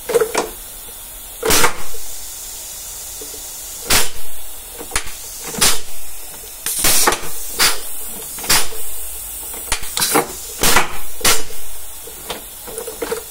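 Scania truck gearbox being shifted by hand: about a dozen short bursts of compressed-air hiss with knocks from the lever as the air-operated range change and gears are worked.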